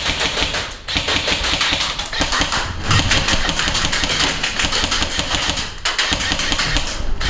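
Airsoft guns firing in rapid automatic bursts, a fast string of sharp clicks and pops broken by short pauses about one, three and six seconds in.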